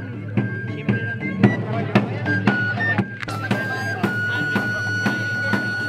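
Folk pipe-and-drum music: a high pipe plays a melody over a steady drumbeat of about two beats a second, with a low hum beneath. From about two-thirds of the way in, the pipe holds one long note.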